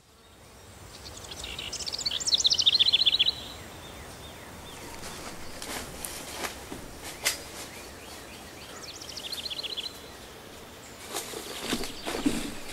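A songbird sings two fast trills of short, high notes that slide downward, the first about a second in and louder, the second around nine seconds in, over steady outdoor background hiss. A few sharp clicks come in between, and rustling near the end.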